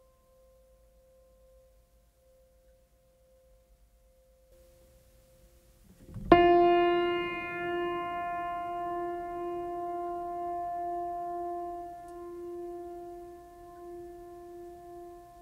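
A single sharp metal strike about six seconds in, ringing on afterwards as several steady tones that slowly fade. Before it, a fainter ringing tone dies away and there is a few seconds of near quiet.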